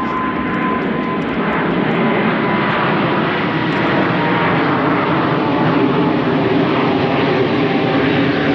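Fixed-wing aircraft engine noise, a loud steady rush with a faint whine that slowly drops in pitch.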